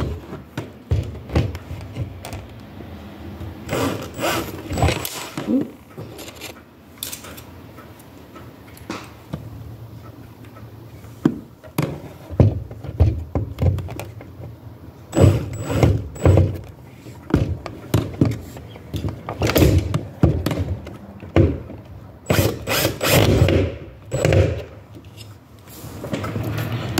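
Irregular knocks, clicks and short scrapes of hand work fitting a door sweep to the bottom of a door, busier in the second half.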